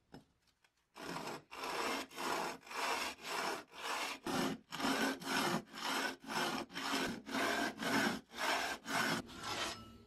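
Flange face of a vintage car horn's metal housing rubbed back and forth on sandpaper laid flat on a workbench. A short knock as it is set down, then from about a second in an even scraping rhythm of about two strokes a second.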